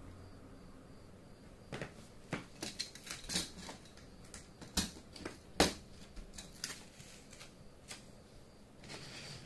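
Plastic Plarail toy track pieces clicking and knocking as a yellow track piece is handled and fitted onto the pink track: a string of sharp, irregular clicks over several seconds, the loudest about halfway through.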